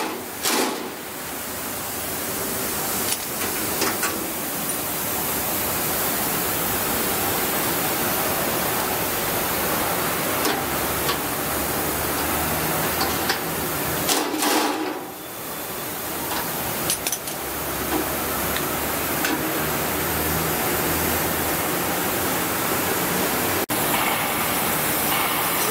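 Impact wrench running in long, steady runs as it undoes the bolts holding a combine harvester's chopper guard, cutting out briefly about halfway through.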